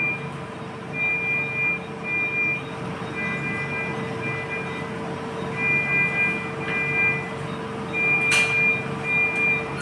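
Repeated high electronic tones of one pitch, some short and some longer, switching on and off over a steady hum, with a single sharp click near the end.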